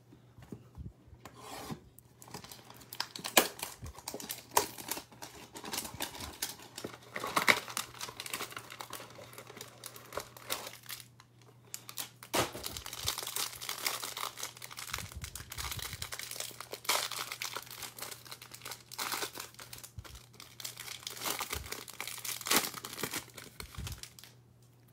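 The plastic wrapping on a stack of trading cards is crinkled and torn open by hand, in irregular crackling bursts with sharp snaps. There is a short pause about halfway through.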